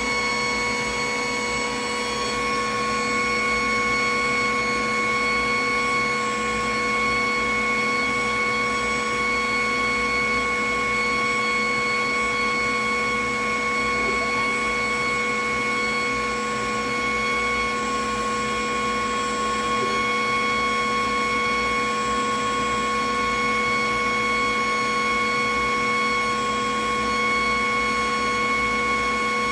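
Glowforge Plus laser cutter running a cut job: a steady machine hum with a constant whine.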